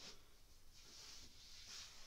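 Near silence: room tone, with faint soft rustling as a sock is pulled off a bare foot.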